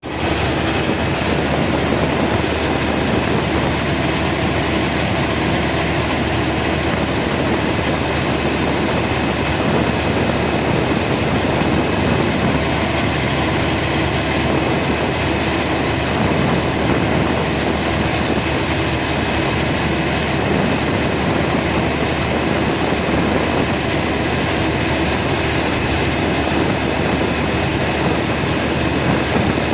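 Cummins generator engine running steadily under test: a loud, even engine drone with a constant hum and a faint high whine, unchanging throughout.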